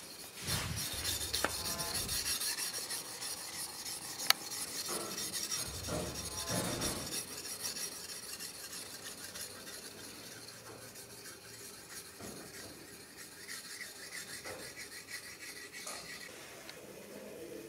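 Sharpening stone rubbed rapidly back and forth along a katana blade by hand, a quick rasping scrape that is louder in the first half and fainter later, with a few knocks of handling and one sharp click about four seconds in.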